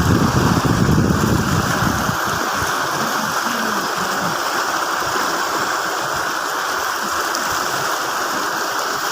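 Floodwater rushing and gushing in a steady, loud wash, with an added low rumble for the first couple of seconds.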